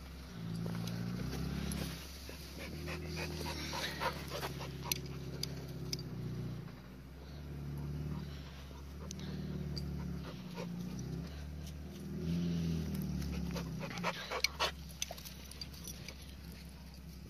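Suzuki Samurai's four-cylinder engine revving in repeated surges that rise and fall as it crawls up a rock ledge. Clusters of sharp clicks and rustles come close by about four seconds in and again near the end.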